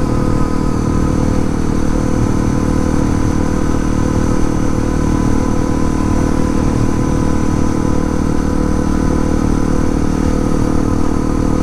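Honda CRF250L's single-cylinder engine running at steady revs while riding.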